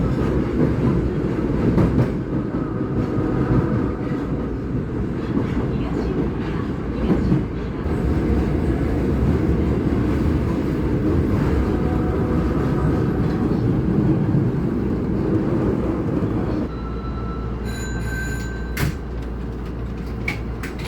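Osaka Metro Tanimachi Line subway train running, a steady loud rumble of wheels on rail with a faint whine above it. The rumble eases off about 17 seconds in.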